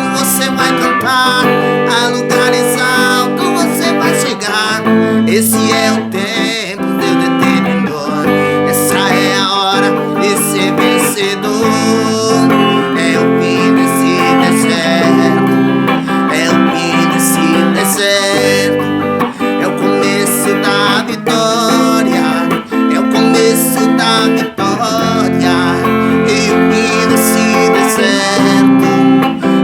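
Music led by a strummed acoustic guitar, with sustained chords throughout.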